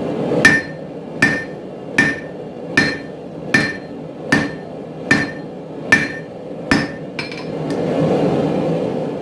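Forging hammer striking hot spring steel on an anvil in a steady rhythm, nine blows a little under a second apart, each with a short metallic ring. A steady rushing noise runs underneath and swells after the last blow.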